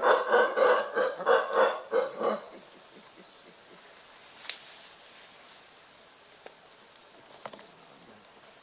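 Howler monkey giving a loud, rapid series of grunting calls, about three a second, which stops about two and a half seconds in; a few faint clicks follow.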